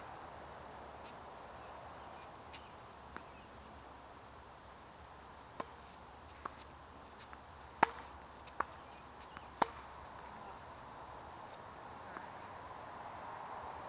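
Tennis balls struck by rackets and bouncing on a hard court during a rally: sharp, scattered pops, the loudest three coming close together a little past the middle. A faint high trill sounds twice in the background.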